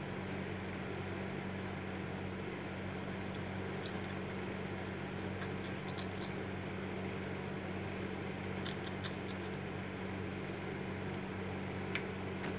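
Steady low electrical hum, with a few faint, short sticky clicks from hands rubbing a spice paste into whole raw fish: a cluster about five to six seconds in, another near nine seconds, and one near the end.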